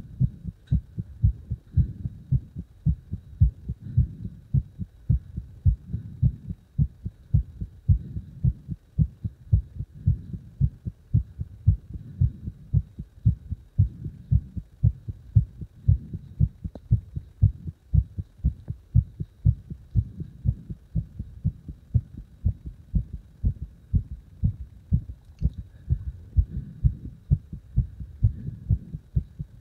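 Strongly beating heart: low, dull thumps repeating in a steady, even rhythm.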